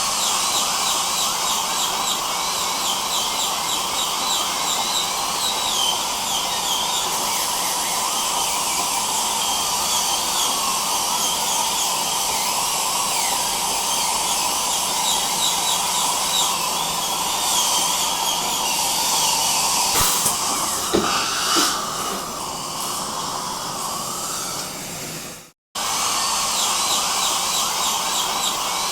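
Dental drill whining over a steady suction hiss. The sound cuts out abruptly for a moment near the end, then resumes.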